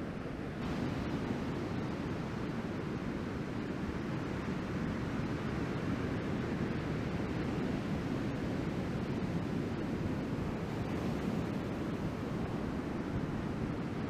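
Ocean surf breaking and washing up the beach: a steady rush of noise, with wind on the microphone. It gets slightly louder about half a second in.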